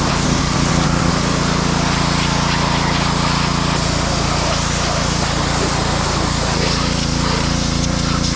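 Pressure washer running steadily, its motor drone under the hiss of the water spray blasting dirt off an ATV.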